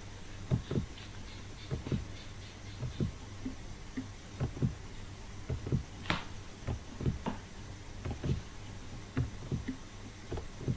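Irregular keystrokes and clicks on a computer keyboard and mouse, one or two a second, over a steady low electrical hum.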